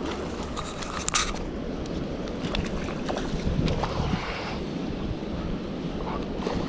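Wind buffeting the microphone in a steady low rumble, mixed with scattered clicks and rustles of rod and reed handling while a hooked pike is played at the bank. There is a short burst of noise about a second in.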